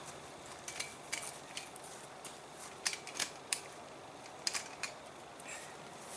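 A series of irregular sharp clicks and ticks, a dozen or so, over a steady hiss.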